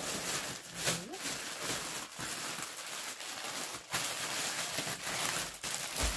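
Clear plastic packaging crinkling and rustling as it is handled and pulled off a new bag, with irregular surges and a few sharper crackles.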